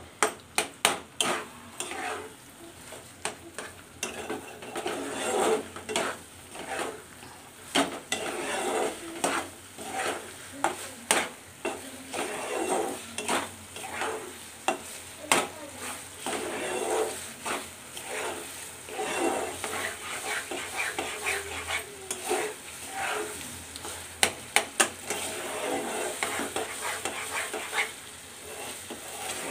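A metal spatula stirring and scraping a thick mixture of reduced milk and khoa around a nonstick pan, with frequent clicks of the spatula against the pan and a steady sizzle as the mixture cooks down towards a dry sandesh dough.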